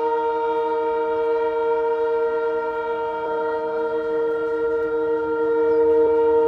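Locomotive horn of an approaching train blowing one long, unbroken multi-tone blast, starting abruptly and growing slightly louder near the end.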